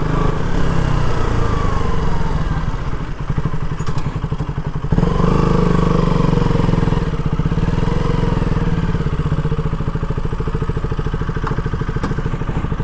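KTM RC 200's single-cylinder engine running as the bike is ridden at low speed, the revs falling and rising with the throttle, with a brief dip about four seconds in. The engine note eases off near the end as the bike slows to a stop.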